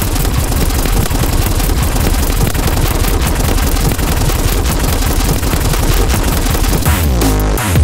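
Loud, harsh, distorted synthesizer noise from Helm run through distortion; about seven seconds in it turns into electronic music with a pitched bass that slides down.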